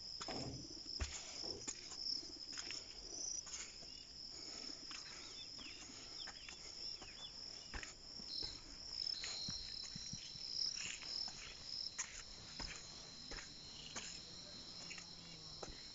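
Crickets chirring in a steady high-pitched trill, joined by a second, slightly lower trill about nine seconds in. Scattered faint footsteps and knocks sound through it.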